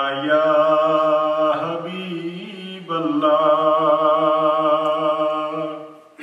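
A man chanting a naat, an Urdu devotional poem in praise of the Prophet Muhammad, solo and unaccompanied, in long drawn-out phrases with a wavering pitch; a fresh phrase begins about three seconds in and fades near the end.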